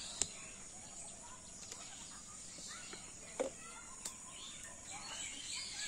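Quiet rural background: faint bird chirps over a steady high insect-like tone, with three light knocks.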